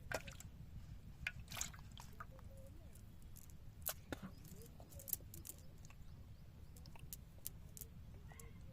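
Irregular small splashes and drips of water, a handful of sharp ticks scattered through, over a steady low rumble.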